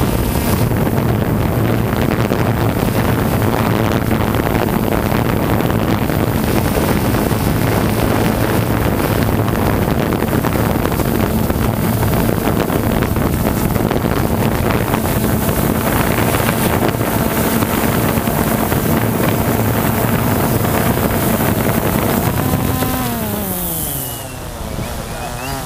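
Quadcopter drone's propellers and motors running with a steady hum and rushing air. Near the end the motor pitch falls as the drone slows and comes down close to a person's reaching arms.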